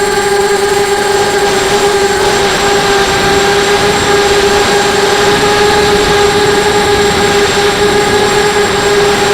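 Brushless motors and propellers of a 250-size FPV racing quadcopter in flight: a loud, steady whine held at nearly one pitch, over a rush of air noise.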